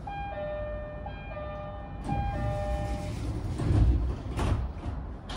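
Train door chime, a descending two-note tone repeated three times, followed by the passenger doors sliding shut with a rush of noise and a thud about four seconds in and another near the end, on an E131-series commuter train about to depart.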